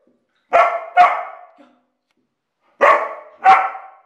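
Puppy barking: four short, loud barks in two pairs, the second pair near the end.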